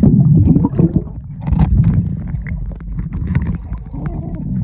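Muffled underwater sound of pool water churning and bubbling around a camera held below the surface: a dense low rumble with scattered knocks and splashes.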